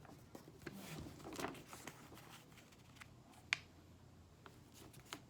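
A sheet of computer paper being handled and folded, with faint rustling and crinkling, and a single sharp click about three and a half seconds in.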